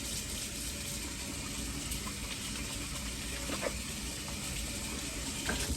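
Kitchen sink faucet running steadily while hands are washed under it, with a couple of light knocks; the water shuts off at the very end.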